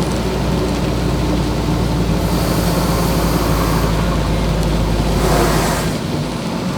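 Truck engine droning steadily, heard from the cab, under a haze of road and rain noise. A brief loud whoosh comes about five seconds in, and after it the deepest part of the engine drone drops away.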